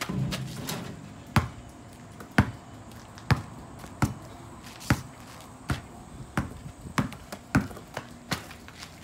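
Basketball bouncing on an asphalt driveway as it is dribbled: about ten sharp single bounces, roughly one a second, some a little closer together.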